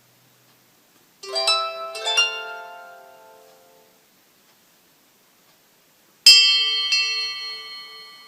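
Two short Samsung Galaxy J1 Ace ringtones played one after the other: a quick run of about four notes that fades out, then after a pause of about two seconds a bright tone struck twice that rings on and fades.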